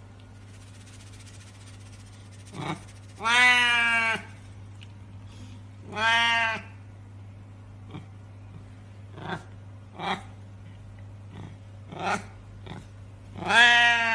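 A black cat meowing loudly three times, each meow long and drawn out, with a few short, quieter sounds in between.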